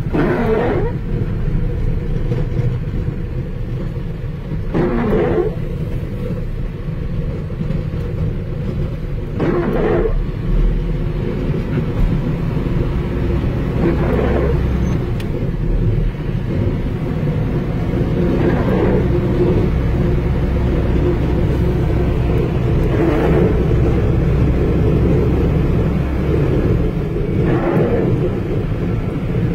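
Snowplough truck's engine running steadily, heard from inside the cab, with a windscreen wiper swishing across the glass about every four and a half seconds.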